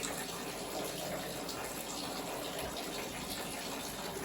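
A steady stream of water siphoned through a small pipe from a 5-litre bottle, falling and splashing into a bowl below.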